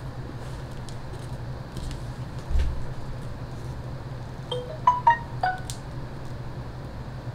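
Hand tools being handled at a leatherworking bench: a dull knock, then a quick run of about five short, ringing clinks at different pitches, over a steady low hum.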